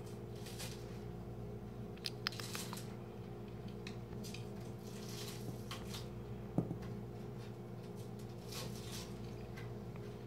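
Faint rustles and light clicks from cats moving about on carpet, with a sharper tap about six and a half seconds in, over a steady low hum.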